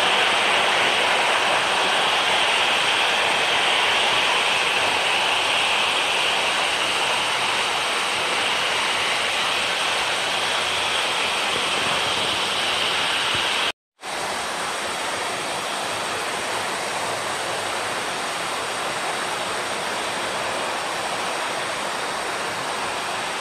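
Steady rushing of a waterfall. A steady high-pitched hiss rides on top of it and stops at a sudden break in the sound about 14 seconds in, after which the water noise runs on slightly quieter.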